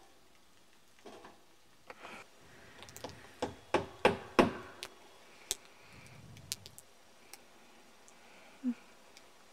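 Irregular knocks and taps of nails being driven into a wooden plank roof, with a quick run of four loud strikes about four seconds in.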